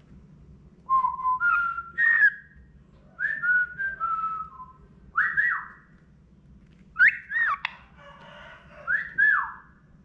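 Cockatiel whistling a song: several short phrases of clear whistled notes, some held level and some swooping up and down, with pauses between phrases.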